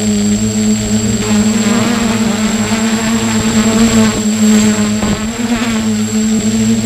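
Multirotor drone's brushless motors and propellers humming steadily, picked up close by the drone-mounted camera, with a thin steady high whine over the hum.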